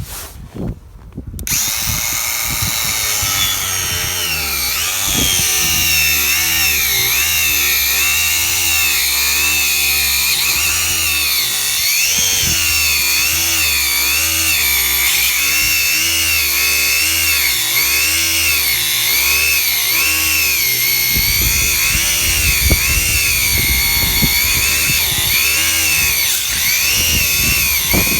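Cordless WORX angle grinder with a 100 mm metal-cutting disc starting up about a second in, then cutting through a thick cardboard tube. Its whine wavers up and down in pitch as the disc bites and frees.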